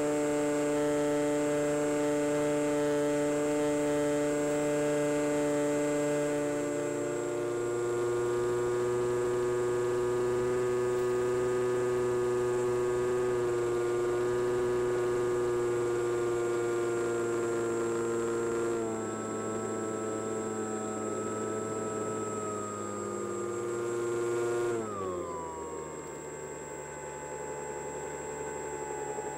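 Electric motor of an Easy Glider Pro RC glider, heard from the aircraft, running with a steady whine. Its pitch steps down about a quarter and two-thirds of the way through, then falls sharply and it quietens near the end as the motor slows.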